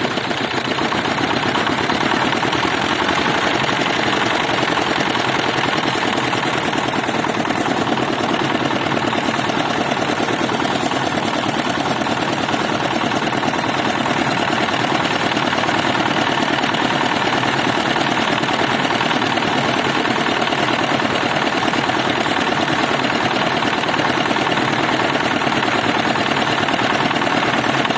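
Old single-cylinder 'dores' diesel engine running steadily, with a rapid, even chugging beat that holds without a break.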